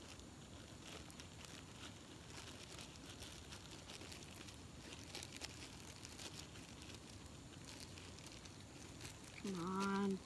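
Plastic zip-lock bag crinkling faintly as dough is squeezed and worked inside it. Near the end a short vocal sound from a person, louder than the crinkling.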